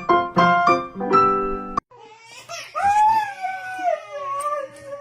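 Piano music that cuts off suddenly, followed by a dog whining: one long, high, wavering cry that slides up and down.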